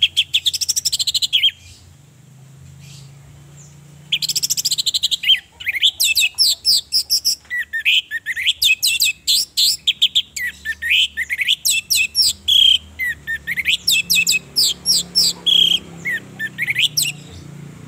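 Orange-headed thrush singing: a fast buzzy trill, a pause of about two and a half seconds, then a long, unbroken run of quick, varied sweeping whistled notes.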